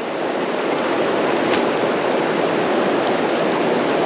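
Creek water rushing steadily, with a single light tick about a second and a half in.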